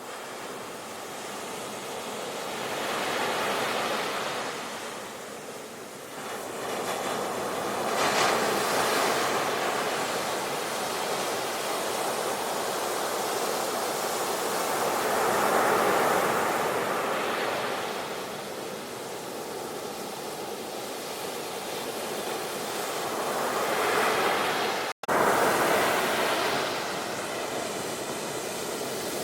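Sea waves surging and washing on the shore, swelling and ebbing every few seconds. Near the end the sound cuts out for a split second and comes straight back.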